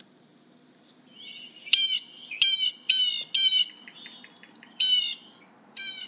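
A blue jay calling: four calls in quick succession starting a little under two seconds in, then two more near the end.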